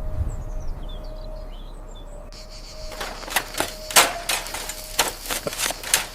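Faint bird chirps over a steady tone, then from about three seconds in a run of irregular sharp clicks and knocks, the loudest about four seconds in.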